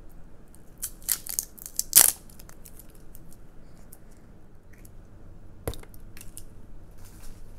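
Small plastic slime barrel being opened by hand: a run of sharp plastic clicks and crackles as the seal and lid are worked off, the loudest about two seconds in. Later comes a single soft thud as the black slime is tipped out onto the table.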